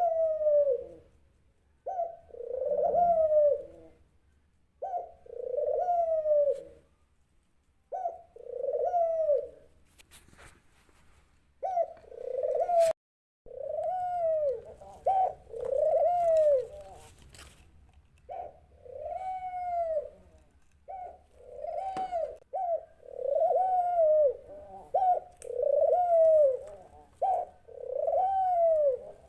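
Dove cooing: a long series of soft arched coos, each rising and falling in pitch, repeated every one to two seconds with brief pauses between runs. A few sharp clicks come about ten to thirteen seconds in.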